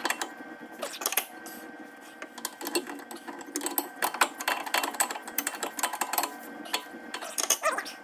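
A metal wrench clicking and clinking against steel hydraulic fittings in quick, irregular strokes while a hose fitting on a skid steer's auxiliary valve is tightened.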